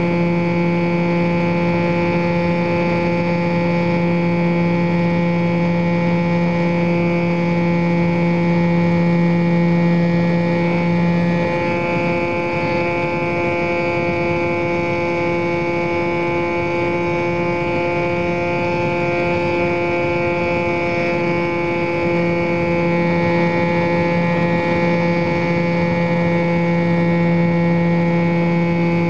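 Model airplane's motor and propeller heard from on board the plane: a steady drone made of several fixed tones. The lowest tone drops out about a third of the way in and comes back for the last part.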